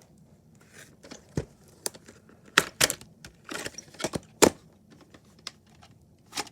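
A VHS tape and its packaging being handled: a run of sharp plastic clicks and knocks with a little rustling, thickest and loudest in the middle.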